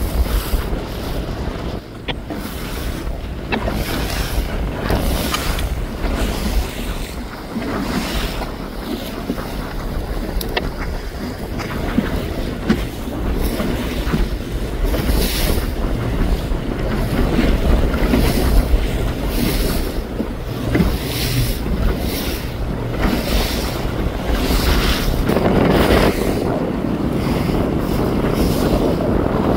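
Wind buffeting the microphone in repeated gusts over the rush of water and waves around a boat on open water, with a steady low rumble underneath.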